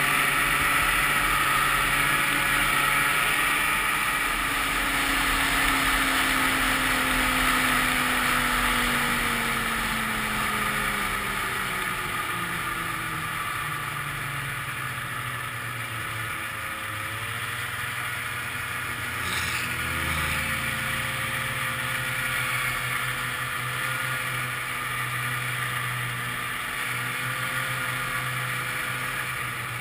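1995 Ski-Doo Grand Touring's two-stroke engine running on the trail, heard from the sled itself. The engine note falls as the sled slows over the first dozen seconds, then holds steady at a lower speed.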